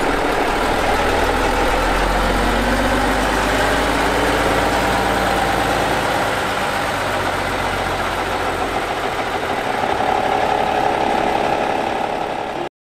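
Diesel engine of an ex-military six-wheel dump truck running at low speed as the truck drives slowly past and turns, a steady low hum that cuts off abruptly near the end.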